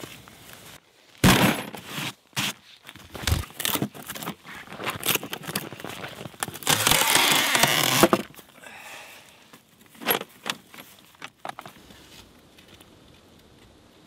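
Metal hand tools and sockets clinking and rattling in a plastic toolbox as it is rummaged through: a string of sharp clanks, then a denser rattle lasting over a second, then a few lighter clicks.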